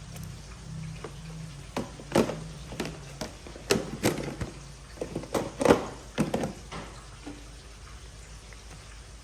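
Kitchen clatter while cooking: a string of sharp knocks and clinks through the middle seconds, as of utensils and pans being handled.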